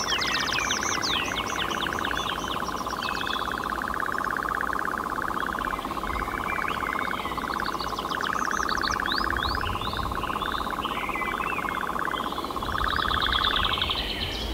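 European nightjar churring: a long, very rapid trill that steps back and forth between a lower and a higher pitch every second or two, and stops shortly before the end. Other birds chirp and call above it throughout.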